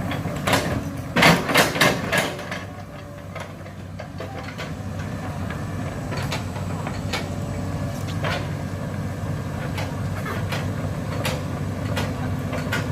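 Diesel excavator engine running steadily, with a cluster of loud sharp cracks and knocks about half a second to two seconds in and scattered fainter knocks after.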